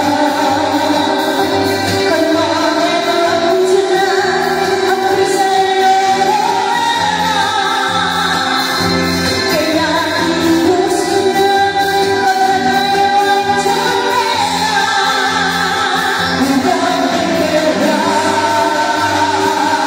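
Singing over loud backing music with a steady low beat.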